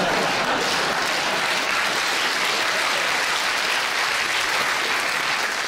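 A large theatre audience applauding steadily after a joke.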